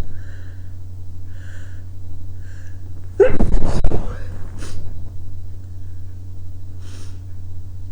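A person's loud sneeze about three seconds in, led up to by a few short breaths and followed by a couple of short sniffs or breaths.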